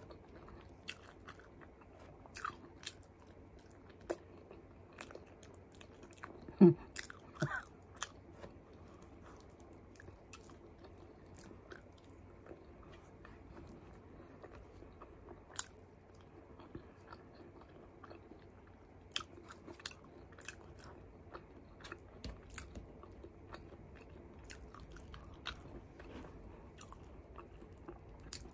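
Close-miked chewing of a mouthful of sautéed string beans with sardines and rice, with wet mouth clicks and lip smacks scattered throughout. One short, louder throat sound comes a little over six seconds in.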